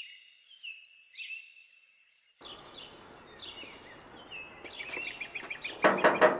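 Small birds chirping over and over in short notes and whistles, with outdoor background noise coming in about two and a half seconds in. Near the end comes a brief loud clatter of several sharp knocks, the metal gate's latch and bars rattling.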